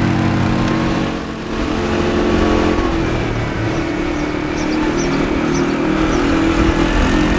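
ATV engine running while riding along, easing off briefly about a second in and then pulling again.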